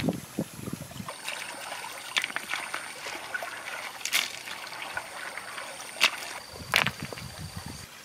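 Shallow water splashing and trickling as hands work through it among loose stones, with a few sharp knocks.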